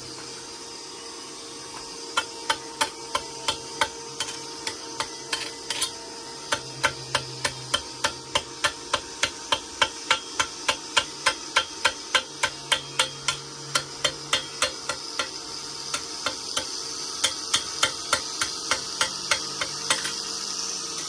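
A hammer striking repeatedly at a steady pace, about three sharp blows a second, with a steady hum underneath.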